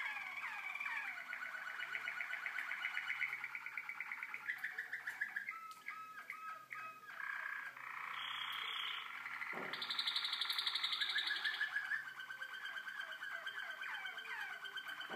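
Young Malinois Waterslager song canaries singing: a continuous song of fast rolls, repeated note groups and short whistles, switching pattern every few seconds and loudest about ten seconds in.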